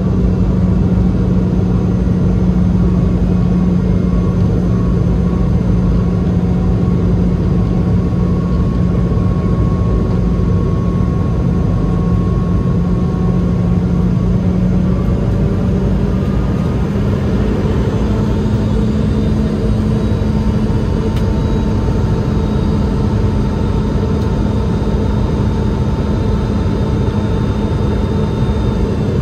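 Steady roar of a Boeing 717-200's rear-mounted Rolls-Royce BR715 turbofan and airflow, heard inside the cabin on approach. A low hum runs under it and steps up slightly in pitch about fifteen seconds in.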